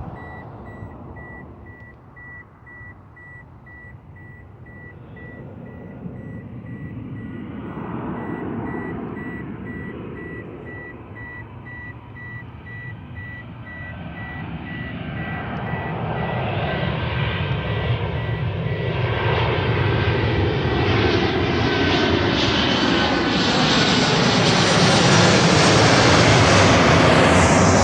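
Airplane on landing approach coming in low, its engine noise growing steadily louder as it nears. The tone sweeps and shifts as it comes closest near the end. A faint high rapid beeping runs underneath for the first two-thirds.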